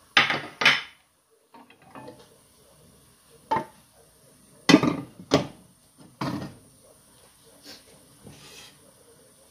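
Kitchen clatter: about half a dozen separate knocks and clunks as cookware is handled and a lidded pan is set down on the stove burner.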